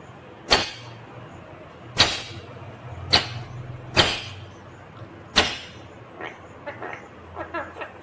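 Rose-ringed parakeet biting into a stick of crunchy food held in its foot: five sharp crunches about a second apart, then softer, quicker nibbling near the end.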